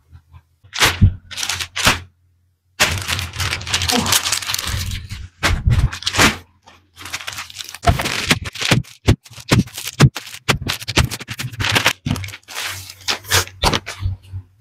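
Clear plastic clothing bags crinkling and crackling as they are handled, with occasional knocks on the table.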